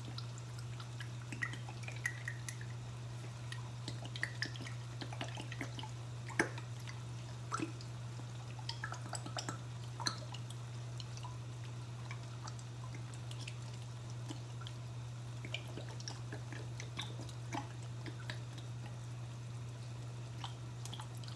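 Sauce bubbling in a skillet while thick banana ketchup plops in from a squeeze bottle: scattered small pops and drips, thicker in the first half, over a steady low hum.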